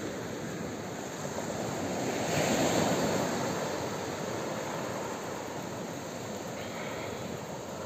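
Small waves breaking and washing up a sand-and-pebble beach, one wave swelling louder about two and a half seconds in and then receding.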